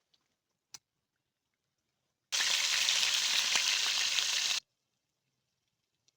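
Food sizzling in hot oil, a loud steady hiss that starts abruptly and cuts off sharply after about two seconds. A faint click comes before it.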